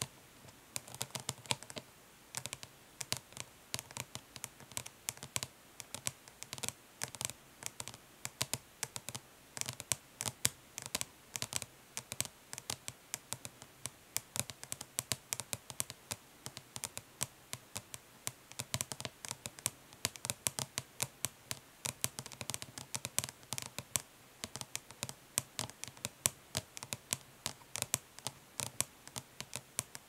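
Long natural fingernails tapping fast but lightly on the plastic lid of an Urban Decay Naked Smoky eyeshadow palette, in quick runs of sharp clicks, mixed with short, light scratches.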